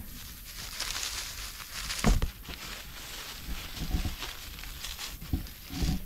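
Dry leaf litter on a forest floor rustling and crunching, with a few soft thumps, the loudest about two seconds in.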